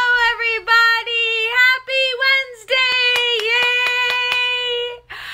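A woman's high sing-song voice with drawn-out held notes, then one long held note while she claps her hands quickly, about five claps a second, stopping just before the end.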